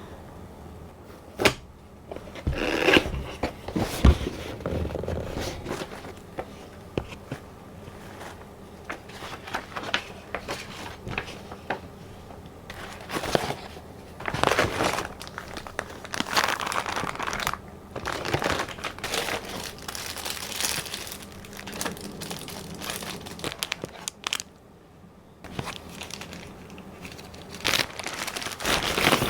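Keyboard packaging being opened and handled: plastic and paper crinkling and rustling in irregular bursts, with a few sharp knocks, the loudest about one and a half and four seconds in.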